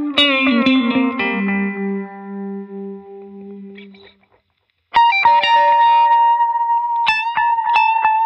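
Electric guitar played through effects pedals: a lead phrase with a note bent down, dying away about four seconds in, then after a brief gap a new phrase comes in suddenly on a long held high note with picked notes around it.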